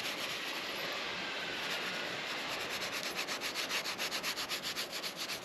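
Steel wool scrubbing rust off metal with WD-40 penetrant: a steady rasping hiss of back-and-forth strokes, the strokes becoming distinct and rhythmic in the second half. The rust is coming off easily.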